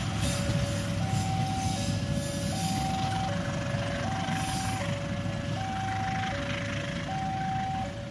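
Railway level crossing warning alarm sounding a steady two-tone chime, alternating a higher and a lower note of under a second each, over the rumble of a passing train's coaches rolling away.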